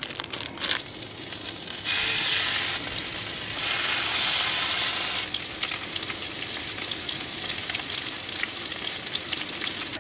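Greenling fillets sizzling in melted butter in a pan, with a spatula scraping the pan in the first second. The sizzle is loudest from about two to five seconds in, then settles into a steadier sizzle with crackles.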